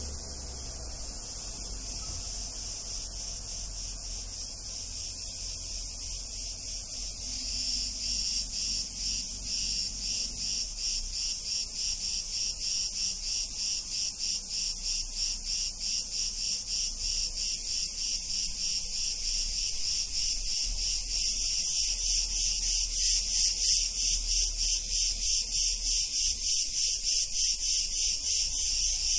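Cicadas singing: a high, evenly pulsing buzz, several pulses a second, that grows louder about seven seconds in and again about twenty-one seconds in.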